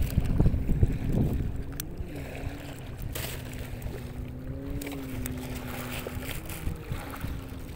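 Wind rumbling on the microphone with a few handling knocks at first. From about two seconds in, a distant engine drones steadily at a low pitch, wavering slightly.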